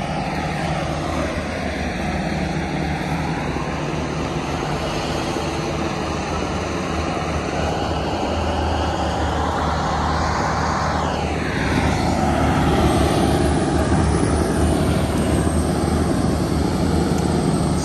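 Steady drone of heavy diesel machinery, with a tracked wood grinder running and throwing mulch, growing somewhat louder about two-thirds of the way in.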